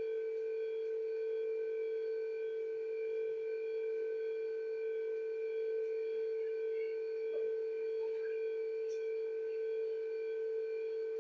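Steady hum made of several constant tones that do not change, with a faint tick or two.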